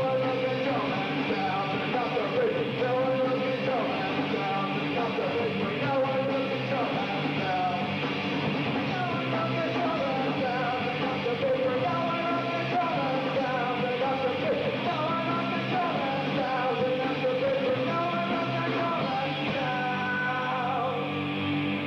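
Live alternative rock band playing a song, with electric guitars and a vocalist singing over them.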